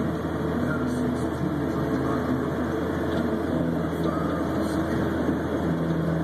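Snowcat grooming machine's diesel engine running steadily under load, a constant low drone.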